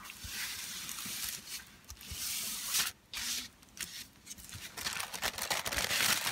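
Tissue paper rustling and crinkling under hands smoothing it down onto glued cardstock, in several swishes with short pauses, turning to a denser crackle about five seconds in.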